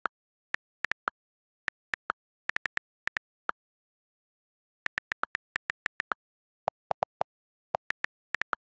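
iPad on-screen keyboard key clicks, one short click per tap, in quick runs with a pause of about a second and a half in the middle and dead silence in between. A handful of clicks are lower-pitched than the rest.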